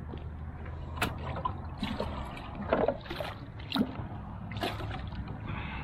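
A plastic bucket dipped into the edge of a river and filled, with about six short splashes and sloshes of water over a steady low rumble.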